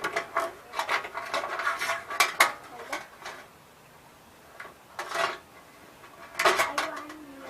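Light metallic clinking and rattling as small parts are handled: a quick run of clicks over the first three seconds, then two short scraping rustles later on.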